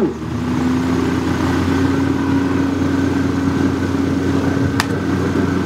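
A motor running steadily at a constant pitch, with one sharp click about five seconds in.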